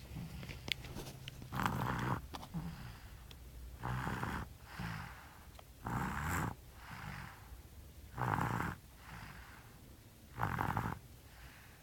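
Steady rhythmic snoring: five loud snores about two seconds apart, with softer breaths between them.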